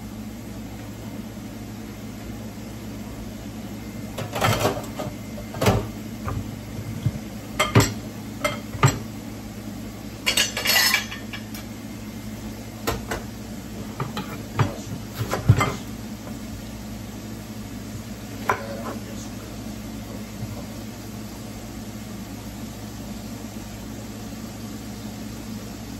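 Kitchen clatter of dishes and utensils: scattered knocks and clinks, bunched in the first half with a short rattle near the middle, over a steady low hum.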